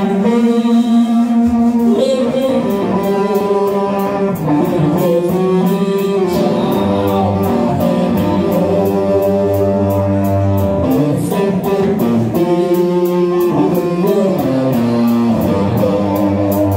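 Live blues-rock band playing: an electric guitar riff over a bass guitar line, with the drum kit's cymbals joining about two seconds in and keeping a steady beat.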